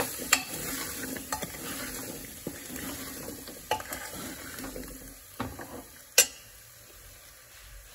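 Steel spoon stirring and scraping potatoes and masala inside an aluminium pressure cooker, with scattered clinks of metal on metal, the loudest about six seconds in. A light sizzle from the hot pot dies away over the stirring.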